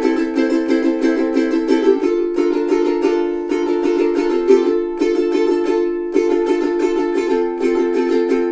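Kiwaya KPS-1K all solid koa soprano ukulele playing chords, struck in a brisk rhythm of several strokes a second, with the chord changing every second or two.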